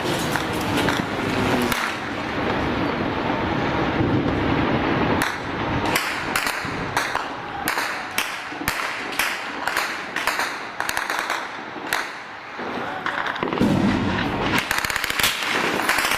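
Gunfire: a dense noisy stretch, then from about five seconds in a run of sharp cracks, irregular, about two or three a second.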